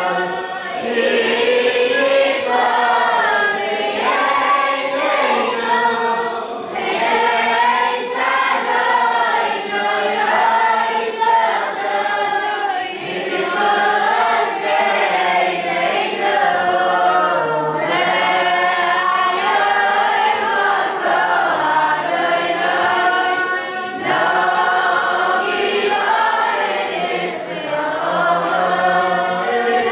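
A large group of boys singing prayers together in unison, a continuous many-voiced chant with a melody that rises and falls.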